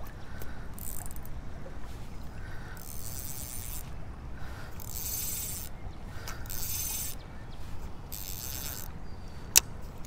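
Spinning fishing reel being cranked in about four short bursts, its gears whirring and ticking, with one sharp click near the end.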